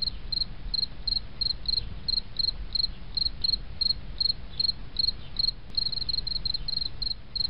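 Cricket chirping used as a sound effect for an awkward silence: a steady run of short high chirps, about three a second, over a low rumble.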